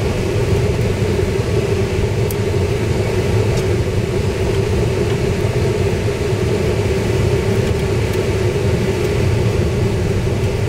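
Vehicle driving on a gravel dirt road: a steady rumble of engine and tyres, with a few faint ticks now and then.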